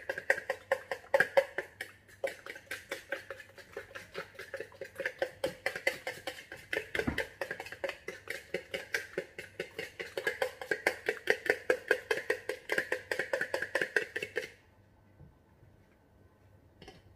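A fork beating a raw egg with salt in a plastic mixing bowl, tapping and scraping the bowl in a fast, steady rhythm of several strokes a second. The beating stops about three seconds before the end.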